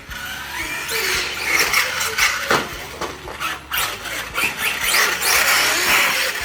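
Electric RC monster truck running, its motor whine rising and falling with the throttle over a rough haze of tyre and drivetrain noise, with a few sharp knocks.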